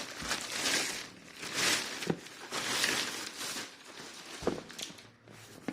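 Packaging being handled and opened: crinkling, rustling swells with a couple of sharp knocks as the package is handled.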